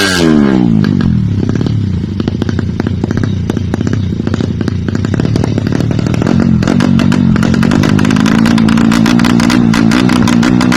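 Bored-out 200cc fuel-injected Suzuki Satria FU single-cylinder engine: revs falling away right at the start, an uneven idle, then a steady slightly raised engine speed from about six and a half seconds in.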